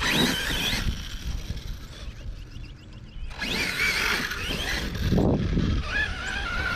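Arrma Kraton 6S BLX brushless RC truck driven in two throttle bursts, the first at the start and the second about three seconds later, its motor whine rising and falling with the throttle, with a fainter whine near the end.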